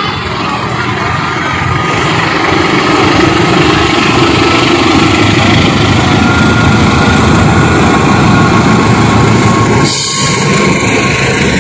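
A KAI CC 206 (GE C20EMP) diesel-electric locomotive's engine running under load as it hauls a passenger train past, with wheels rolling on the rails. The noise grows louder over the first few seconds and holds strong, with a steady whine above it, and briefly dips about ten seconds in.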